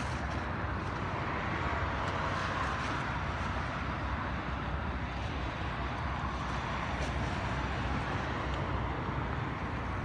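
Steady waterfront ambience: a continuous low rumble and wash of choppy sea water mixed with distant road traffic.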